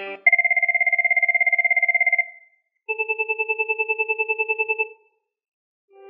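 Cisco 8861 IP phone's speaker playing sample ringtones. First 'Chirp 1', a fast electronic trill of two tones lasting about two seconds. After a short pause comes 'Chirp 2', a lower, slower-pulsing chirp lasting about two seconds.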